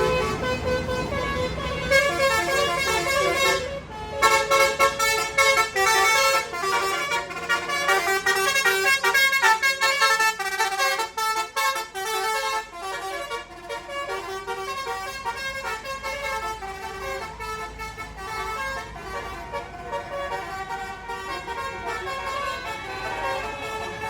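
A bus's Basuri telolet horn, a multi-trumpet musical air horn, playing a rapid melody of short changing notes, louder in the first half and softer later. A bus engine runs low underneath at first.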